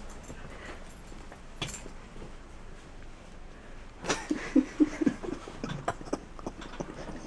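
Stifled giggling: a quick run of short laughs about four seconds in, with a few soft clicks and rustles around it.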